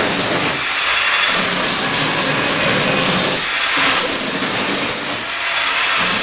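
Handheld electric power tool running and cutting a channel for wire into the expanded-foam face of an insulated concrete form wall: a loud, steady hiss of the foam being cut.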